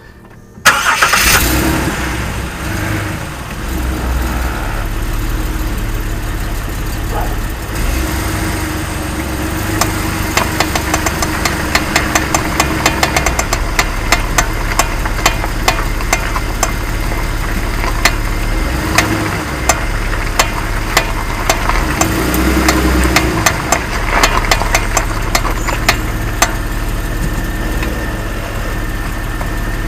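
Jeep Wrangler JK running, with rapid irregular clicking and rattling from the front left wheel. The clicks come from a failing front axle universal joint whose needle bearings have broken. The engine note rises and falls briefly twice.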